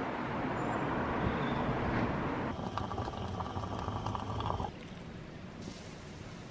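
Steady outdoor background rush, then from about two and a half seconds in, the crackling sputter of a stovetop moka pot brewing on a gas burner, which gives way near the end to a faint stream of coffee poured over ice in a glass.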